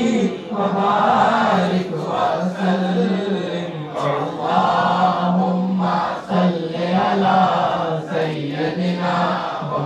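Men chanting an Islamic salawat refrain in long, drawn-out sung notes, amplified through a microphone, with a few short breaths between phrases.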